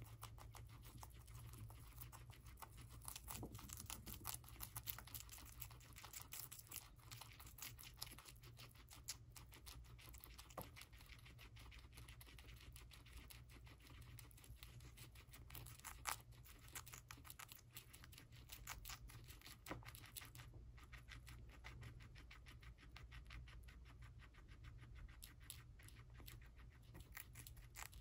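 Guinea pigs chewing celery stalks: a faint, rapid run of crisp crunching clicks and small snaps as the fibrous stalks are bitten and torn, with one louder snap about halfway through.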